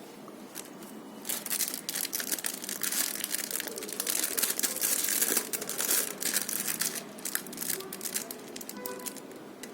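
Packaging crinkling and rustling as it is handled, with a dense run of irregular crackles starting about a second in.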